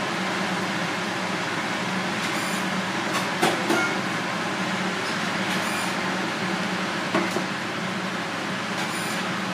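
Steady background rush with a low hum, and a metal ladle scraping and clinking in a coated pan of thick soup, a few light clinks about three and a half seconds in and again about seven seconds in.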